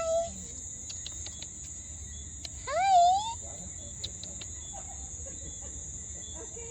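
A cat meows twice: a short rising call at the start and a louder, drawn-out meow about three seconds in that rises, dips and rises again. A steady high insect drone, like crickets, runs underneath.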